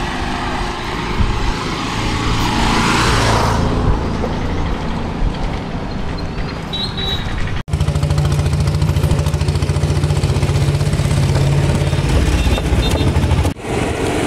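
Wind hissing on the microphone over road traffic, then after a sudden cut a motorcycle engine running steadily close by.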